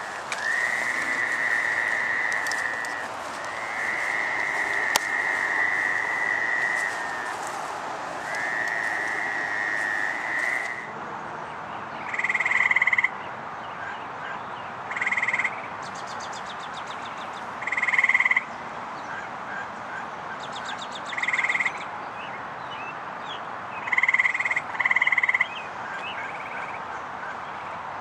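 Fowler's toads calling with long trills, three calls of two to three seconds each. About eleven seconds in, this gives way to gray treefrogs calling with short trills of about a second, repeated every few seconds, sometimes two close together.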